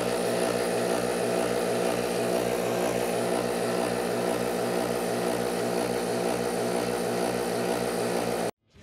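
Rough Country portable twin-motor 12-volt air compressor running under load, inflating a tire from 15 PSI: a steady motor hum with an even, rapid pulsing beat, cutting off suddenly near the end.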